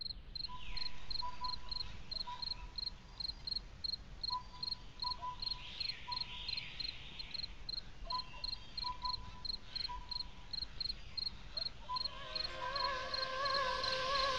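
Night ambience of crickets chirping in a steady rapid pulse, about four chirps a second, with scattered short lower calls and a few faint falling whistles. About twelve seconds in, eerie music with wavering, sliding tones fades in over it.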